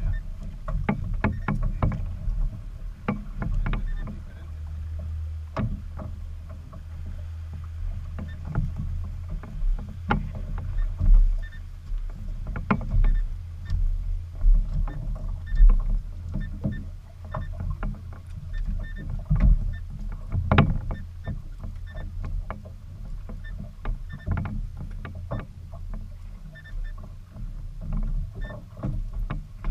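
Fishing boat on the water: a low rumble with frequent sharp knocks and slaps, and a steadier low hum from about four seconds in.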